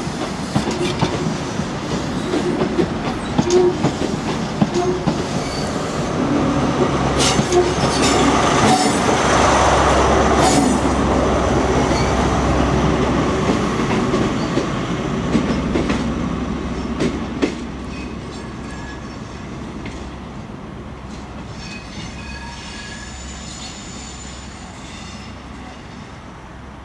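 CrossCountry High Speed Train pulling out: coaches rumble past with the wheels clicking over rail joints. About nine seconds in, the rear class 43 power car's MTU diesel engine goes by as the loudest part, with a deep hum. The train then fades away down the line.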